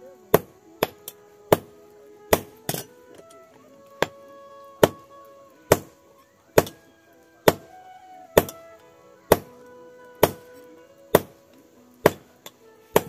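Blacksmith's hand hammer forging a red-hot steel blade held in tongs on a small anvil. Sharp metallic blows come about once a second, a little irregular at first and steadier later, each with a short ring.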